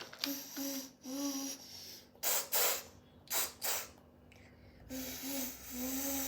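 A young child imitating a running train with the mouth: a few short pitched toots, then two pairs of hissing chugging puffs, then more toots.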